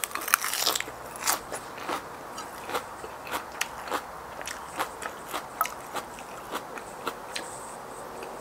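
A person biting into fresh lettuce and chewing it: a crisp crunch on the bite, then steady chewing with short crackly clicks, about three chews a second.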